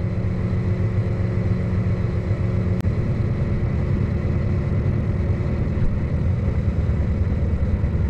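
Tractor engine running steadily, with a low drone. Nearly three seconds in there is a sharp click, and a steady higher hum stops at that moment.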